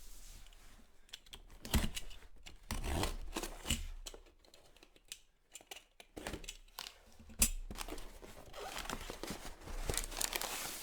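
A box being opened by hand: irregular tearing, rustling and crinkling of packing material, with a few sharp knocks.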